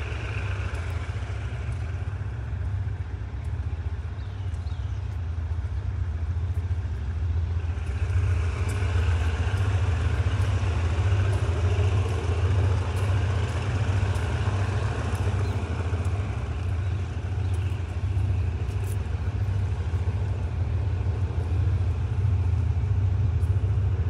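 Diesel container freight train on the nearby track: a steady, loud low rumble.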